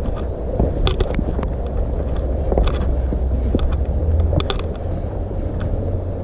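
Wind rumbling on the microphone, with scattered scuffs and knocks of hiking footsteps on rock and mud.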